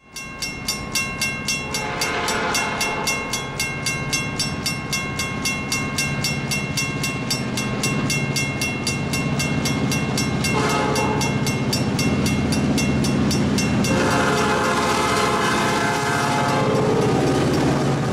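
Railroad crossing bell ringing in rapid, even strokes, with a diesel locomotive horn sounding several long blasts over it. A low diesel engine rumble grows from about halfway as the train reaches the crossing, and the bell fades out near the end.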